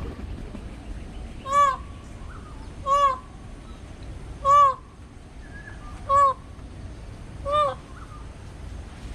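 A bird calling loudly, the same short call five times about every one and a half seconds, each call rising and then falling in pitch.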